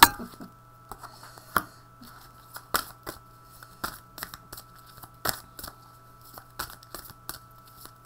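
A deck of oracle cards being handled and shuffled by hand, giving an irregular run of sharp card snaps and clicks, the loudest right at the start, over a faint steady hum.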